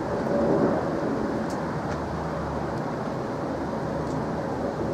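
Steady jet-engine rumble of an Emirates Airbus A380, a four-engined airliner, flying overhead.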